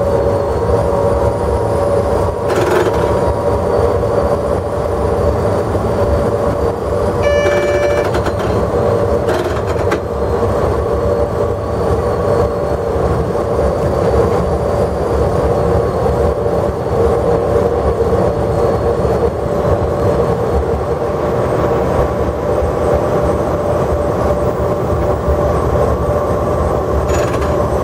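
Cab noise of a DB Class 103 electric locomotive running at about 140 km/h: a steady rumble of wheels on track with a constant whine on top. A brief higher tone sounds about seven seconds in, along with a couple of faint clicks.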